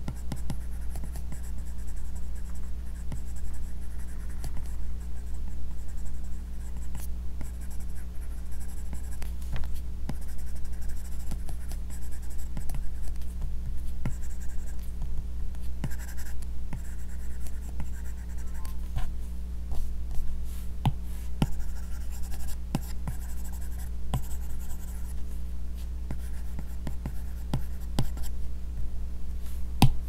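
Apple Pencil drawing on an iPad Pro's paper-texture screen protector: short, scratchy pencil-like strokes in bursts, with light taps of the plastic tip on the screen, over a steady low hum.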